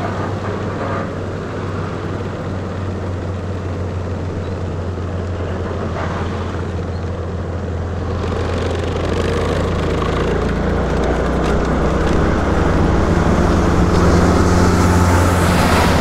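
Heavy truck's engine and a scooter's engine running at low road speed, a steady low drone. From about eight seconds in the noise deepens and grows louder as the scooter speeds up, with wind hiss building near the end.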